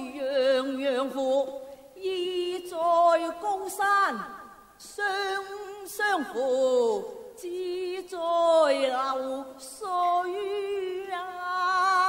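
Cantonese opera (yuequ) singing: a voice holds long, wavering notes in a series of phrases, several ending in steep downward glides, with short breaks between them.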